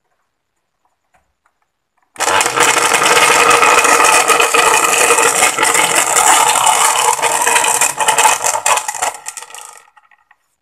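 Panasonic blender motor running loud with water in the jar. It starts abruptly about two seconds in, runs for about seven and a half seconds and then cuts off, trailing away. The noise is what the repairer traces to a loose, wobbling bushing in the blade assembly.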